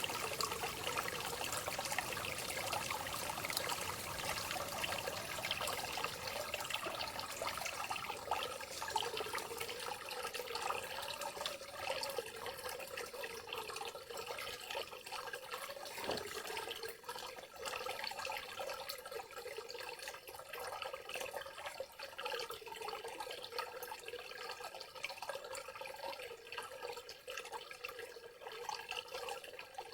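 Rainforest ambience of steady trickling and dripping water.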